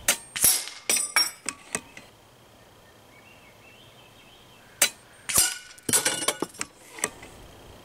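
Two air-rifle pellet hits on steel knockdown silhouette targets, about four and a half seconds apart. Each is a sharp ping with metallic ringing, then several clinks and clatters as the steel targets topple off the rail.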